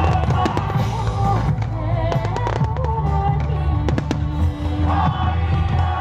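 Fireworks going off in repeated sharp bangs and crackles over loud music with singing.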